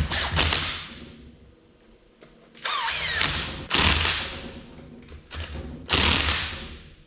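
Cordless drill with an Allen bit running bolts into a transmission adapter plate in several short bursts, the motor winding down after each one.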